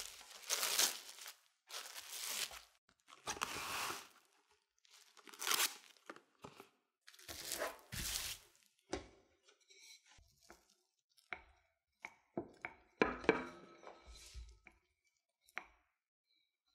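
Plastic cling film crinkling and rustling in a series of loud bursts as it is pulled open and spread around a disc of cookie dough, giving way in the second half to lighter crackles and sharp taps.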